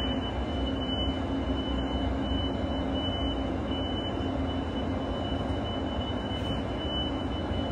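Steady mechanical drone of an indoor ice rink's air-handling and refrigeration equipment, with a steady high whine running through it.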